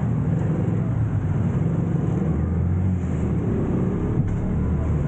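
Motor vehicle running steadily: a low engine drone with road noise.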